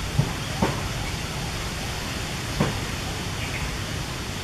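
Steady hiss of outdoor background noise, with three short knocks, two close together near the start and one just past the middle.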